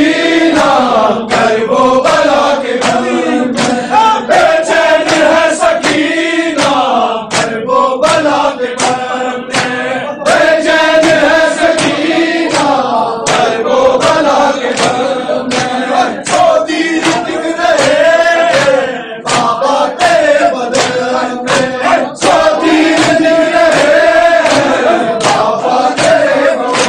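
A group of men chanting a nauha (Shia mourning lament) together, with sharp hand slaps of matam (chest-beating) keeping a rhythm all through the chant.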